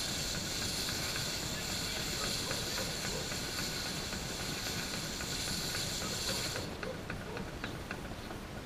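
Garden hose spraying water onto fiddleheads in a wooden cleaning box: a steady hiss that cuts off suddenly about six and a half seconds in. A low, steady rumble from the fiddlehead cleaning machine runs underneath.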